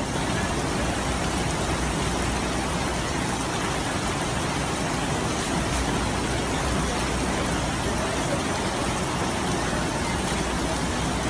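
Torrential rain and fast-flowing floodwater: a steady, even rushing noise with no breaks.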